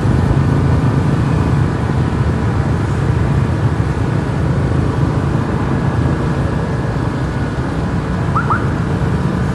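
Bus engine running steadily with a low, even drone.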